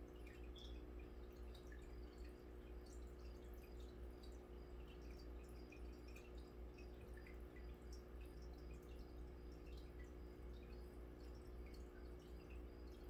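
Faint, scattered pops and drips of air bubbles from an aquarium bubbler breaking at the water surface, over a steady low hum.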